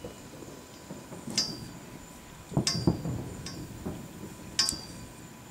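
Fireworks going off across the water: about five sharp cracks with a short ringing tail, the heaviest cluster of bangs coming just past the middle.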